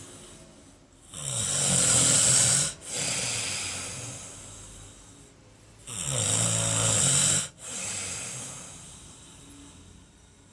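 Loud snoring: two long rasping in-breath snores about five seconds apart, each falling in pitch and followed by a long breathy out-breath that slowly fades.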